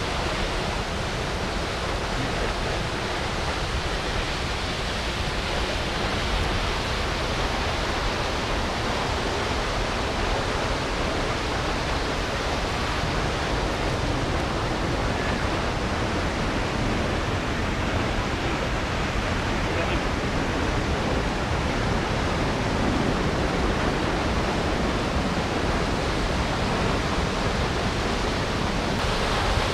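Lower Düden waterfall: a steady, unbroken rush of river water falling over a cliff.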